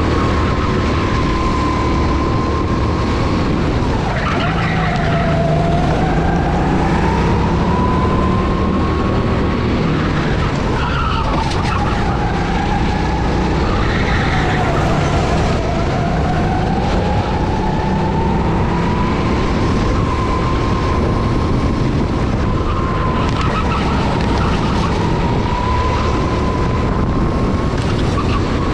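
Go-kart engine running under load, its note dipping as the kart slows into corners and climbing again as it accelerates out, several times over. Brief tyre squeal in a few of the corners.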